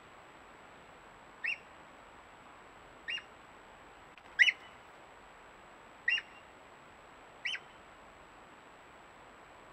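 Dog otter (male Eurasian otter) whistling: five short, high whistles about a second and a half apart, the middle one the loudest.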